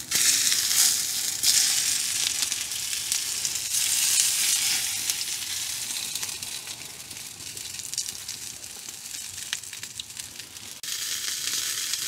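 Food sizzling in a frying pan over an open wood fire, loudest just as it goes into the hot pan and gradually dying down, with a few sudden jumps in level.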